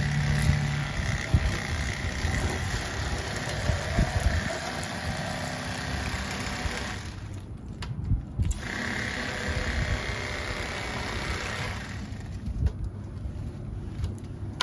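Electric fillet knife running with a steady motor buzz as its blades cut fillets from crappie. It stops for a second or two about seven seconds in, then starts again.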